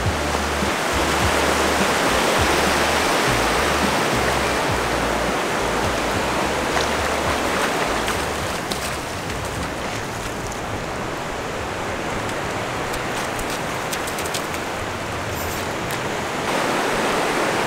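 Ocean surf breaking and washing up the beach: a steady rushing hiss of waves.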